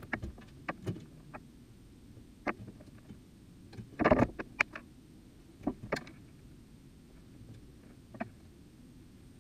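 Hand work on metal electrical conduit and its fittings: scattered light clicks and knocks, with a louder short rattle about four seconds in and a couple more knocks around six seconds.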